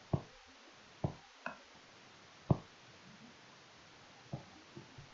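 Several short, dull knocks at irregular intervals, about six in five seconds, over faint steady hiss.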